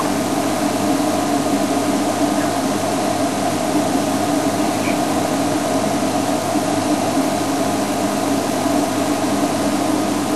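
A safari game-drive vehicle's engine idling, a steady, even hum and hiss with no change.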